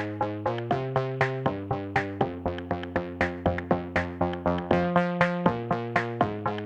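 Background music: an electronic track with synthesizer chords over a steady drum-machine beat.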